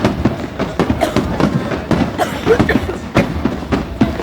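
Aerial fireworks going off in quick succession: a steady run of sharp bangs, several a second, over a continuous rumble.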